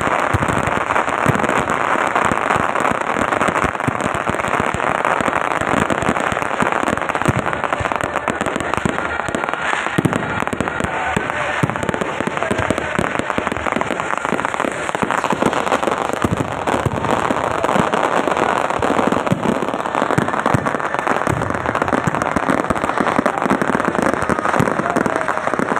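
Fireworks crackling and popping without pause: a dense, rapid crackle over a steady hiss.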